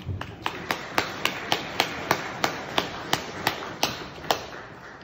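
A small audience applauding, with one person's claps standing out about three times a second over the rest. The clapping dies away near the end.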